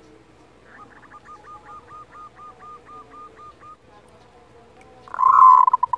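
Zebra dove (perkutut) giving its 'kerot' call, used to rouse other birds into breeding condition: a quick run of short, even notes, about four a second, which stops a little before four seconds in. About a second later comes one much louder, wavering call lasting about a second, the loudest sound.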